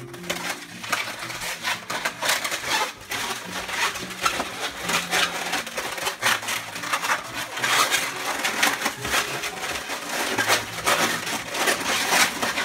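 Latex 260 twisting balloons rubbing and squeaking against each other as they are twisted into a weave: a dense, continuous run of squeaks and crinkly rubbing.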